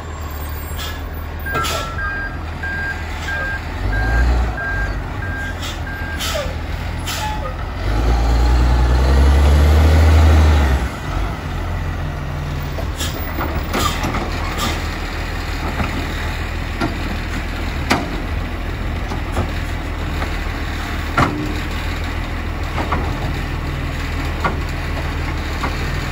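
Side-loading garbage truck: its reversing alarm beeps in a steady run for a few seconds, then the diesel engine revs loudly for a couple of seconds and settles into a steady idle, broken by short sharp hisses and clunks typical of air brakes.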